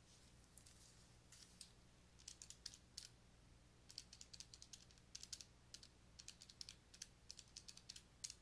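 Faint clicks of calculator keys being pressed in short quick clusters as the sum is worked out. A low steady hum runs underneath.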